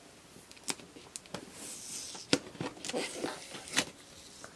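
Fingers and fingernails picking and scratching at clear packing tape on a cardboard box, with scattered light clicks and taps and a short scraping hiss of tape pulling away about halfway through.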